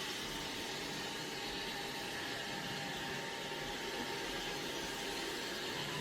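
Xiaomi Robot Vacuum X20 Pro running steadily while cleaning: an even suction-fan rush with a faint steady whine.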